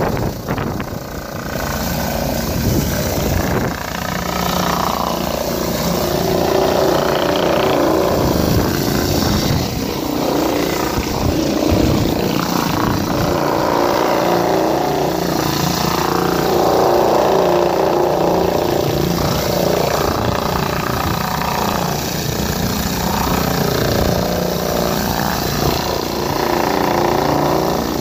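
Rotary flat surface cleaner on a hot-water pressure washer running over wet paving slabs: a steady loud hiss and whirr of the spinning spray bar jetting water onto the stone.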